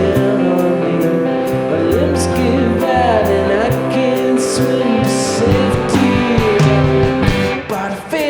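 A live rock band playing: bass notes, guitar, a voice and regular cymbal strikes. The playing drops back briefly near the end.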